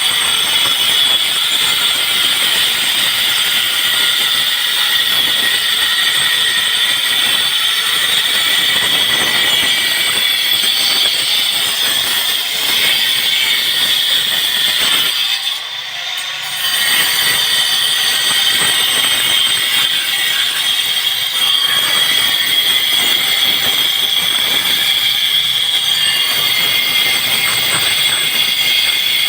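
A machine running with a steady, high-pitched whine over a hiss, dipping briefly about halfway through.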